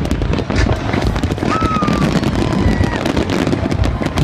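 Aerial fireworks display going off in a dense, continuous barrage of overlapping bangs and crackles, with a brief thin whistle about one and a half seconds in.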